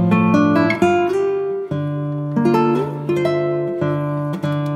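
Background instrumental music on plucked strings: a picked melody over held bass notes.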